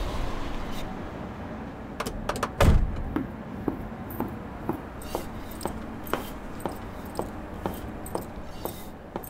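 Rustling and clicks of a bag being handled, then a car door slamming shut about three seconds in, the loudest sound. Footsteps follow, about two a second, steady to the end.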